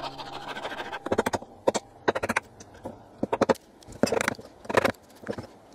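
Background music fading out in the first second, then hand-tool work on a wooden board: a dovetail saw and a mallet striking a chisel, in short uneven clusters of sharp strokes and knocks with brief pauses between.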